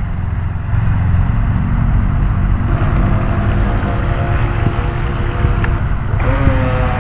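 Electric motor of a Syma Double Horse 7000 RC speed boat running as a faint steady whine over a loud low rumble; the whine's pitch shifts about six seconds in.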